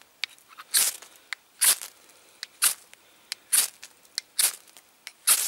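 The spine of a Real Steel Bushcraft knife is struck down a ferrocerium rod six times, about a second apart, each a short, sharp scrape, with small clicks between. The spine throws strong sparks from the rod.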